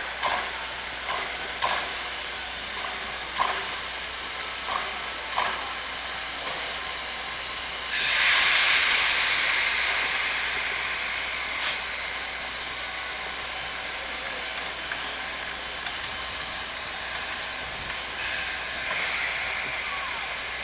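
Baldwin 2-8-0 steam locomotive hissing steam as it moves slowly, with a few light knocks in the first seconds. About eight seconds in a louder burst of steam hiss starts and fades away over several seconds.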